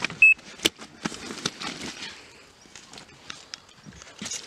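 One short, high electronic beep about a quarter second in, the loudest sound, over irregular clicks, knocks and rustling from handling gear.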